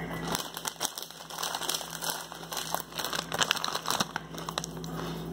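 A bag of kettle chips crinkling and crackling as it is handled, in a run of irregular crackles that thins out near the end.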